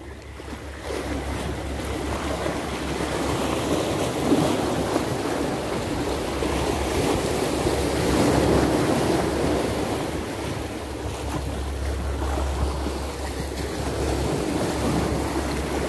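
Sea water washing against the shore in a steady, gently swelling rush, with wind rumbling on the microphone.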